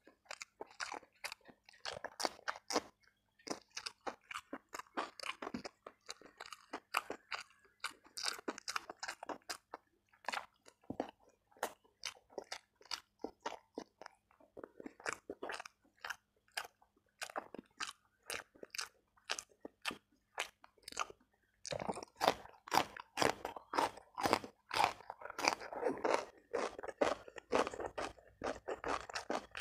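Close-miked chewing of a mouthful of rice and side dishes: a steady run of crisp crunches and wet chews, louder in the last third.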